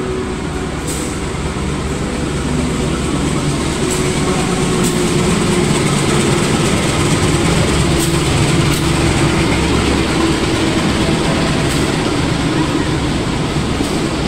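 Train's diesel locomotive running close by: a steady engine hum that grows a little louder over the first few seconds, with a few faint clicks.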